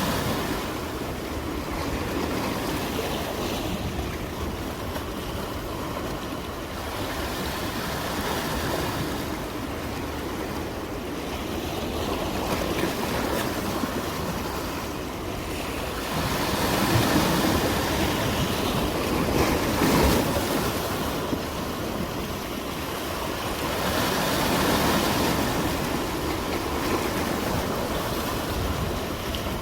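Sea waves washing in on the shore, a steady rush of surf that swells louder several times, most strongly from about 16 to 21 seconds in.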